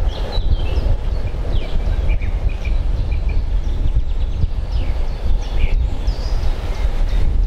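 2M62U twin-section diesel locomotive's two-stroke V12 diesel engines rumbling steadily in the distance as it hauls a freight train, with birds chirping over it.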